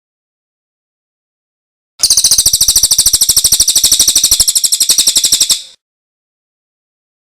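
Songbird's rapid trill, a fast run of evenly repeated high notes, about a dozen a second, starting about two seconds in and lasting about three and a half seconds before fading out.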